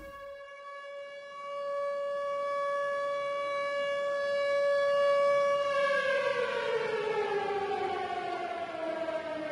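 Air-raid siren wailing: a steady held tone that, about six seconds in, slowly sinks in pitch and then starts to rise again near the end.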